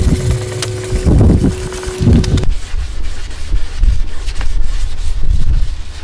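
Sandpaper on a hand sanding block rubbing back and forth over a plastic car bumper, with loud gusts of wind buffeting the microphone. A steady hum cuts off suddenly about two and a half seconds in.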